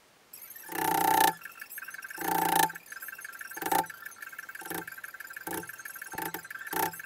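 Claw hammer striking a plastic-handled chisel, chopping out a joint in maple: about seven knocks at roughly one a second, the first two loudest and longest.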